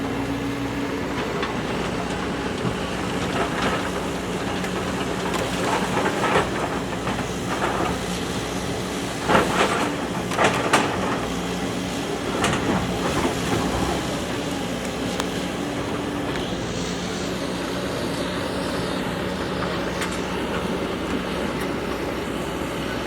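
JCB backhoe loader's diesel engine running steadily under work, with several sharp clanks and knocks, loudest around ten seconds in.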